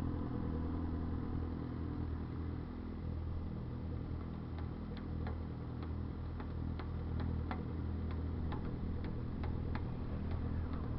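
Motorcycle engine idling steadily. From about four seconds in, a light ticking runs over it, about two to three clicks a second.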